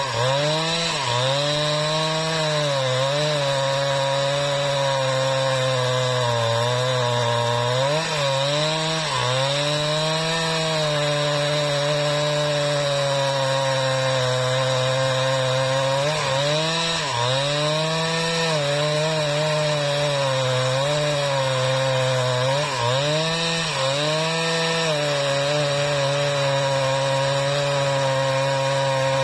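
Husqvarna 395XP two-stroke chainsaw running at full throttle while ripping lengthwise through a mahogany log, its engine note dipping briefly under load several times and climbing back.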